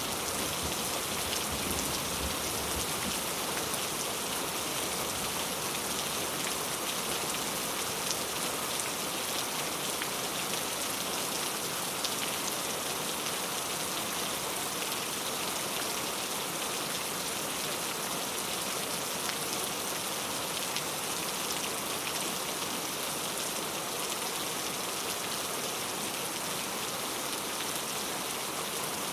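Heavy rain falling steadily, a dense even hiss with fine individual drop ticks.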